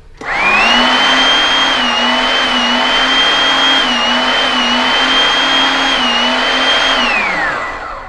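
Electric hydraulic pump for a hydraulic torque wrench starting up and running steadily, a hum with a high whine that dips slightly in pitch now and then as it drives the wrench. Near the end the motor stops and winds down, its pitch falling.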